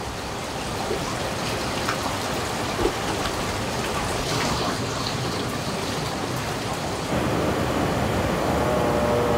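Steady rush and splash of water in a hot-spring bath. About seven seconds in it steps louder into the churning of a jet bath's underwater jets.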